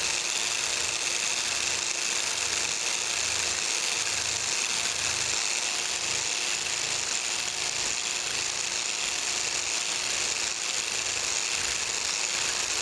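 Biax electric power scraper running steadily, its blade stroking across the metal surface of a planer's clapper-box cross slide. This is a roughing pass with a wide-radius blade set on a long stroke, laying down a crosshatch of scrape marks.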